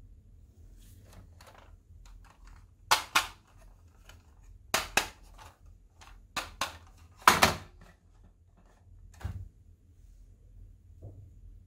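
Hard plastic clicks from a crocodile dentist toy being handled and its teeth pressed. Sharp clicks come in quick pairs every second or two, and the loudest is a longer clatter a little past the middle.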